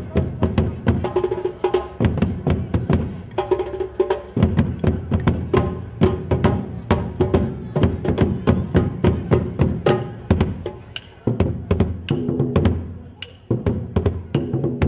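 Percussion music: drums and sharp wooden clicks keeping a fast, steady beat, with a few held pitched notes over it.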